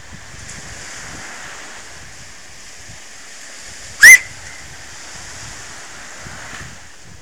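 Small waves breaking steadily on a sand beach, a constant surf hiss. About four seconds in, one short, loud whistle sweeping sharply upward.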